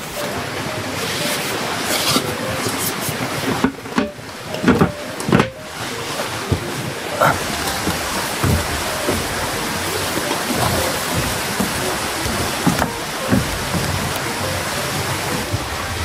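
Steady rain falling, with a few scattered knocks and thumps over it.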